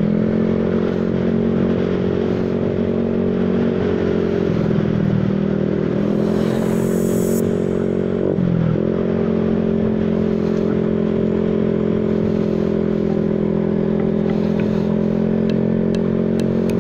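Motor scooter's single-cylinder engine running steadily at cruising speed, with road and wind noise. The engine note sags about four and a half seconds in, dips sharply at about eight and a half seconds, then steadies again.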